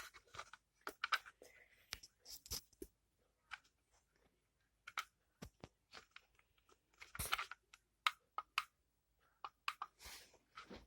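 Faint clicks, taps and scrapes of a plastic smoke alarm being handled and turned over in the hands, with a short cluster of louder knocks about seven seconds in.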